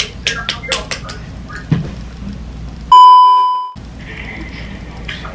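A single loud electronic beep at one steady pitch, lasting just under a second and fading out, about three seconds in; all other sound drops out while it sounds. Before it, a quick run of short clicks and taps.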